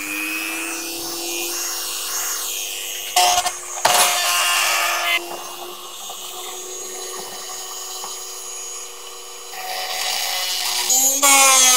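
Dremel rotary tool with a cutoff wheel running at speed with a steady whine. The wheel grinds against the steel head of a self-tapping screw in short bursts a few seconds in, then again more loudly near the end, where the motor's pitch sags under the load of the cut.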